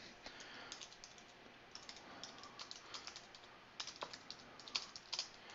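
Faint, irregular keystrokes on a computer keyboard as a sentence is typed.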